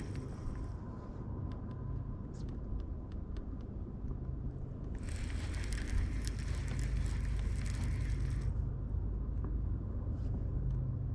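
A steady low hum of a boat motor, with a stretch of hiss from about five to eight and a half seconds in and a few faint ticks.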